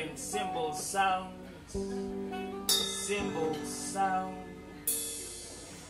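Live band backing music: guitar chords with a melody line over them and light hi-hat strokes, with a cymbal crash about three seconds in and another near five seconds.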